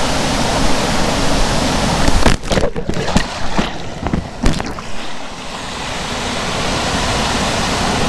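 Loud, steady rushing noise of wind on the microphone, with a run of sharp knocks and crackles about two to five seconds in.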